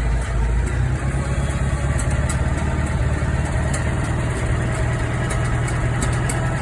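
Vehicle engine running steadily at idle, a low, even drone.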